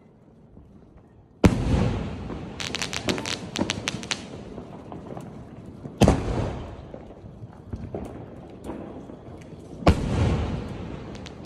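Consumer fireworks combo firing: three loud bangs about four seconds apart, each trailing off in a rumble, the first followed by a quick run of crackling pops.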